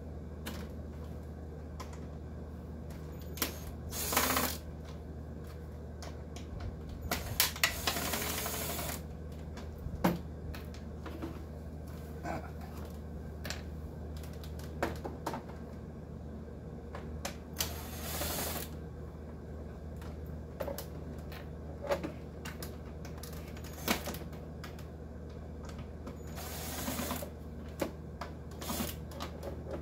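Scattered clicks, knocks and rattles of the plastic housing and parts of a dehumidifier being handled and pried apart, with a few short scraping bursts, over a steady low hum.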